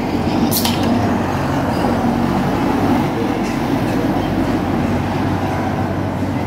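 Steady low rumble of road traffic, with a single sharp click about half a second in.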